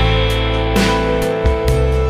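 Background music led by a guitar over a bass line, with notes changing about every half second.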